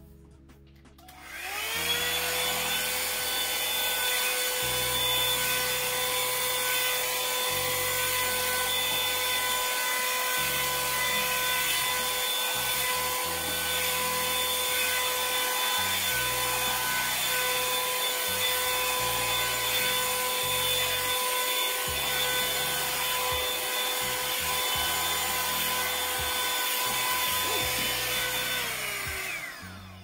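Revlon One-Step hair dryer brush switched on about a second in, its motor spinning up to a steady whine over a rush of hot air, running evenly, then winding down and stopping near the end. Faint background music with a beat plays underneath.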